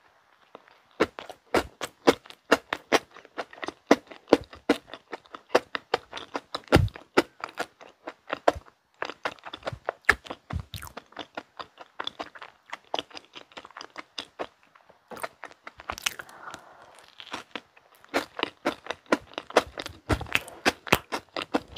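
Close-miked chewing of a soft mint-chocolate bun: a bite, then a steady run of quick clicking and smacking mouth sounds as it is chewed.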